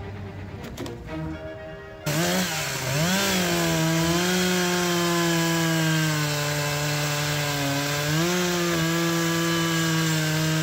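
Gas chainsaw starting up loudly about two seconds in, its pitch swinging up and down for a moment as it is revved, then running steadily under load as it cuts into a large maple trunk. Before it starts, soft background music.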